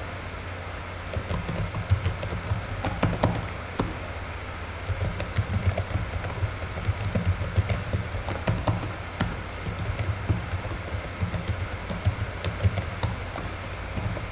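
Typing on a computer keyboard: irregular runs of key clicks with short pauses between them, over a steady low hum.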